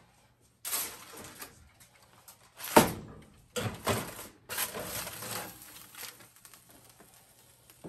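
A foil-covered metal baking pan being handled and set onto a wire oven rack: crinkling aluminium foil and scraping, with one sharp knock about three seconds in as the pan meets the rack.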